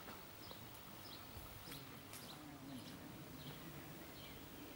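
A small bird chirping over and over, short high notes that fall in pitch about twice a second, faint over a low, even outdoor background hum, with a couple of faint clicks.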